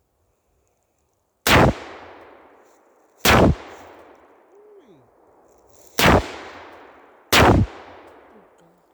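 Four single shots from an AR-15 rifle fired semi-automatically, unevenly spaced over several seconds. Each crack is followed by a long fading echo.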